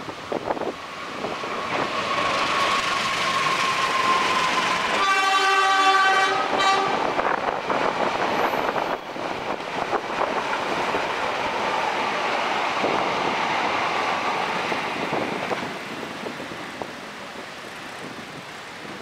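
Diesel-hauled passenger train approaching and passing close by on the rails. The locomotive sounds its horn once, for about two seconds, about five seconds in. The coaches then roll past with a steady rushing noise that fades away near the end.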